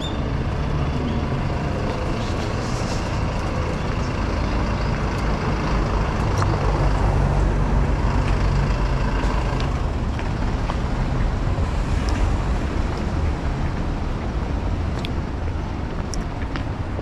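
Street traffic: vehicle engines running and cars passing on the road beside the sidewalk, with a low steady hum that swells around the middle as a vehicle goes by close.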